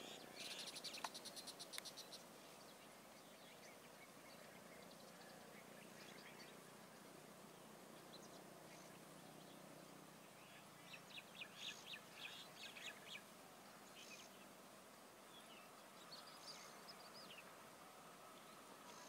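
Faint birdsong over quiet outdoor background noise: quick runs of rapid chirps in the first two seconds, again about eleven seconds in, and briefly near the end.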